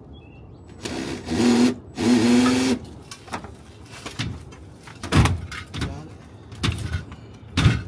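An old outdoor air-conditioner condenser unit being wrestled out: two long harsh scrapes of metal with a steady whine in them, then a series of heavy thumps and bumps as the unit is pushed and tipped.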